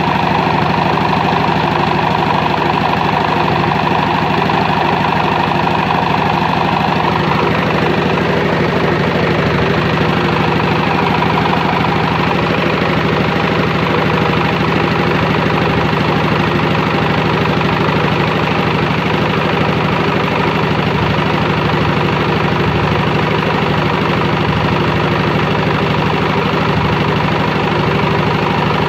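Diesel engine of a trailer-mounted generator set running steadily, its sound changing a little about seven seconds in.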